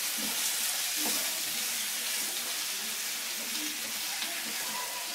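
Sliced onions, tomatoes and mushrooms sizzling in olive oil in a frying pan on a gas burner as they are stirred, a steady hiss.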